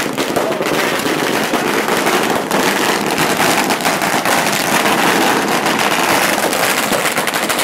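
Firecrackers going off in a dense, continuous crackle of rapid pops, loud throughout.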